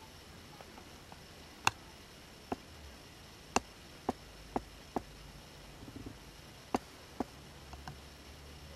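About eight sharp, short clicks at uneven intervals over a faint steady low rumble.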